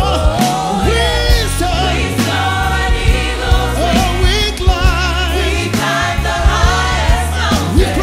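A gospel choir singing a worship song with a live band, bass and drum hits under the voices.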